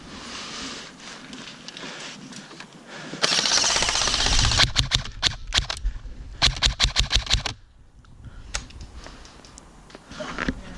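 Airsoft guns firing. A dense full-auto rattle starts about three seconds in, followed by quick separate shots and then a fast run of about eight shots that stops abruptly; one more shot comes later.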